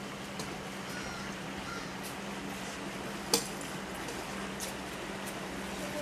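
A handful of short, sharp clicks at irregular intervals, the loudest a little past halfway, over a steady low hum.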